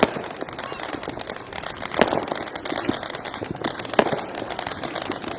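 Many fireworks and firecrackers going off at once at a distance: a continuous crackle of small pops, with three louder bangs about two seconds apart.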